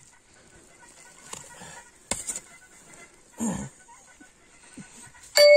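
Digging in frozen ground: a few scattered scrapes and knocks and a short low grunt. Near the end comes a loud metallic clang that rings on, like a spade striking iron.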